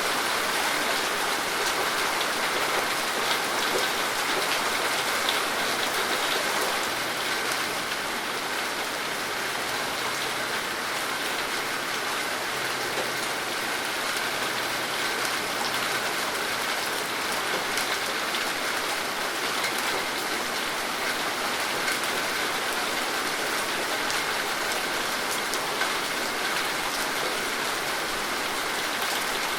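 Steady rain falling, with many fine drop ticks of rain striking a surface.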